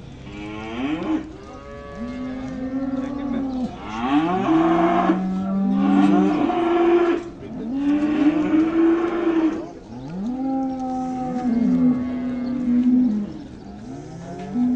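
Several cows mooing one after another, long drawn-out calls at different pitches that often overlap, each rising, holding and then falling away.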